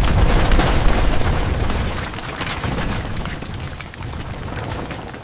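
Building-collapse explosion sound effect: a deep rumble with dense crackling and crashing debris, loudest at first and slowly dying away.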